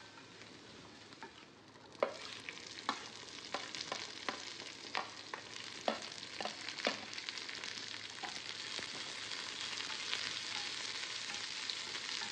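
Chopped garlic and ginger, then sliced onion and green capsicum, frying in a stainless steel pan. The sizzle is faint. Starting about two seconds in there is a run of taps and scrapes from the spatula and spoon as the vegetables go in and are stirred, then a steady sizzle.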